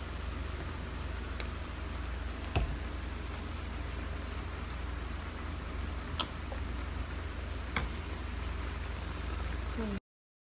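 Steady rain falling over a low rumble, with a few sharp drips or taps, cutting off suddenly near the end.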